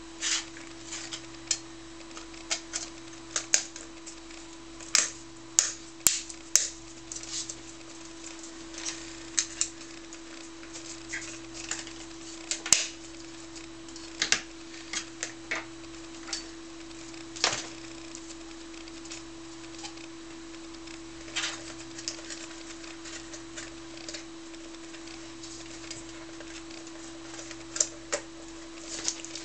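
Irregular light clicks and taps as a clear polycarbonate lens and black retaining rings are handled and fitted into an S10 gas mask's eyepiece, over a steady low hum.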